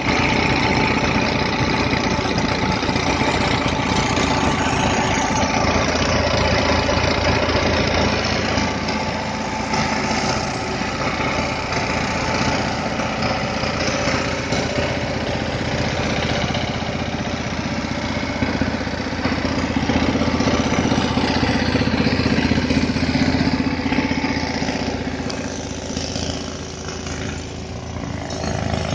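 Massey Ferguson 9000 tractor's diesel engine running steadily, driving a trailed Atlas Copco air compressor through its PTO shaft; the sound dips a little near the end.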